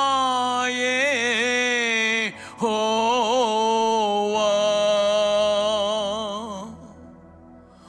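A man singing a slow devotional melody into a microphone, with long held notes and wavering ornaments. There are two phrases with a short breath about two seconds in, and the second trails off near the end.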